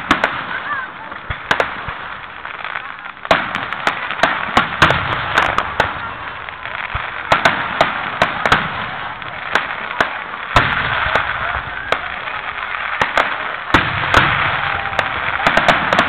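A fireworks display with aerial shells launching and bursting in a rapid, irregular series of sharp bangs, several a second at the busiest moments.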